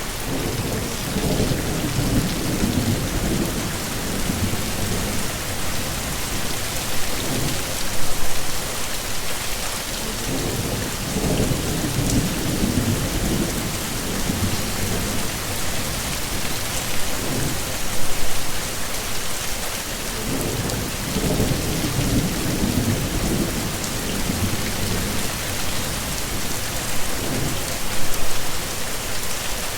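Steady heavy rain, with low thunder rumbles swelling and fading several times.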